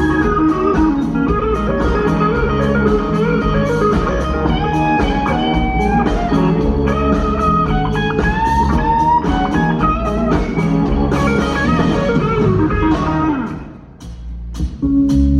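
Blues band playing: an electric guitar lead with bent notes over bass and a steady drum beat. The music drops away about 13 seconds in, and a loud chord comes in just before the end.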